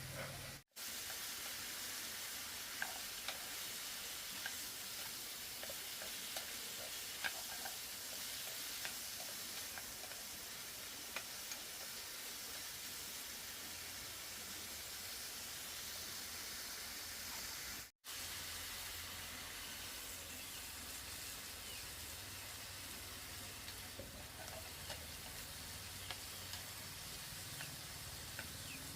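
A steady hiss with scattered light crackles, cut off abruptly twice for an instant.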